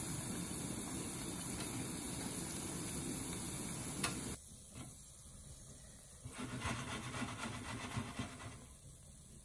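Lotus root slices deep-frying in hot oil: a steady sizzle. About four seconds in it cuts off abruptly, leaving only faint, low, irregular handling sounds.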